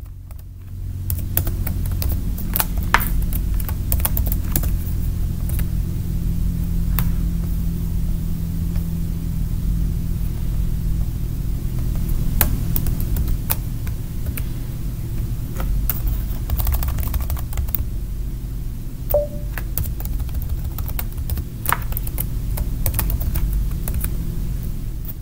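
Computer keyboard and mouse clicking at an irregular pace over a steady low hum.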